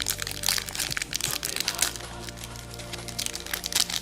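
Foil wrapper of a Pokémon trading card booster pack crinkling and crackling as it is handled and opened, over background music.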